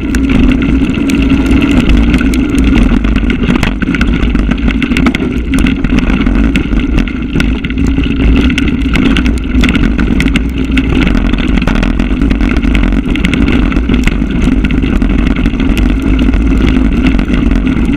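Mountain bike riding a rough dirt trail, heard from a camera on the rider: a loud, steady rush and rumble of tyre and wind noise, with frequent clicks and rattles from the bike over bumps.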